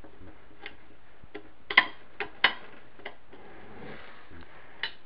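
Irregular sharp metallic clicks and taps, the loudest a little under two seconds in: a steel punch and shift rail knocking against a cast transmission case while a spring-loaded detent ball is pressed down into its bore.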